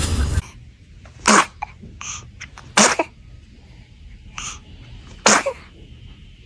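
Newborn baby sneezing three times, short sharp sneezes about a second and a half apart and then after a longer pause.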